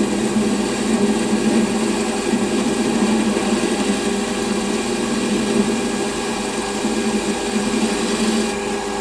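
Small metalworking lathe running and taking a turning cut on an eccentric workpiece set off-centre in the chuck: a steady motor hum with a grinding cutting noise. The higher hiss drops away near the end.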